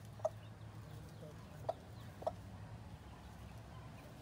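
Rooster giving three short clucks, the second and third close together, over a steady low hum.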